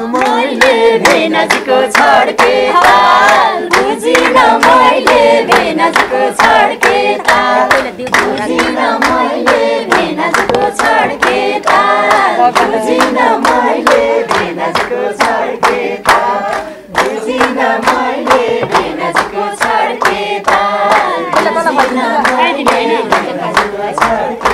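A group of people singing together while clapping hands in a steady beat.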